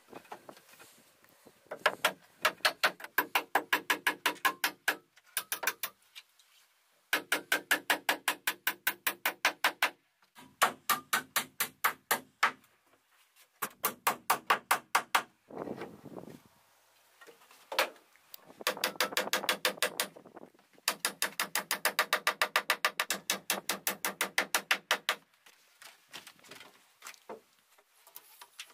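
A hammer driving nails into wooden wall boards and framing in quick runs of rapid, evenly spaced blows, about five a second. There are seven runs, one nail after another, with short pauses between them.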